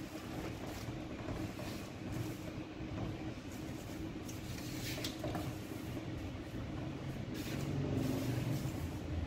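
A steady low rumbling hum, with scattered rustles and small clicks from an empty paper flour sack being handled.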